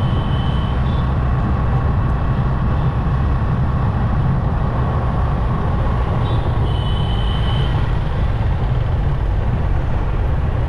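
Steady rumble of a motorbike ride through city traffic, with engine and road noise dominating the low end. Two short high beeps cut through it, one right at the start and one about seven seconds in.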